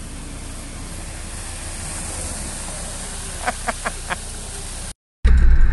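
Land Rover Defender driving slowly through muddy puddles, heard as a steady rushing noise, with four short high-pitched calls about three and a half seconds in. Near the end the sound cuts out briefly and a much louder engine running takes over.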